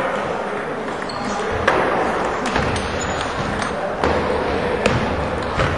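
Table tennis rally: the celluloid ball clicks sharply off the paddles and table in a quick string of hits, starting a little under two seconds in, over a steady murmur of voices in a large hall.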